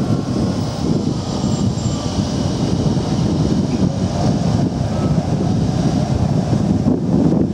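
Low-floor articulated tram rolling close by through a tight turning loop: a steady rumble of wheels on the rails, with faint high tones from the wheels on the curve coming and going above it.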